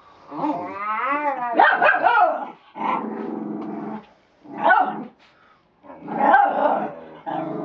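Miniature Schnauzer puppies growling and barking in play: a whine that rises and falls at the start, then rough growls, one long steady growl, and short sharp barks. It is the sound of a jealous puppy objecting to the other two.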